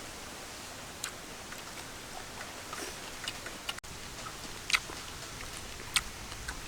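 Scattered small sharp clicks and taps over a steady hiss, from people eating a meal of snails.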